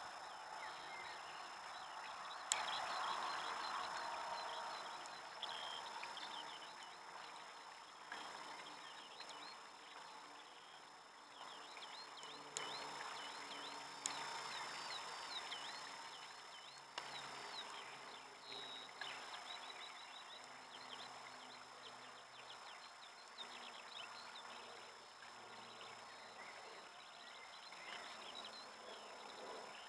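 Water splashing and trickling into a garden koi pond, with many small birds chirping in the background. There are a few sharp clicks.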